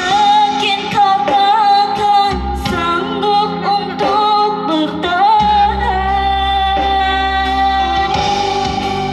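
A woman singing into a microphone over electronic keyboard accompaniment, amplified through PA speakers. Her melody winds and bends with quick ornaments, then settles into one long held note about halfway through.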